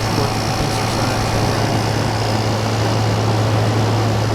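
1988 Sears Kenmore 6000 BTU room air conditioner running in cool mode, heard from its hot exhaust side: a steady low compressor hum under the even rush of fan-driven air.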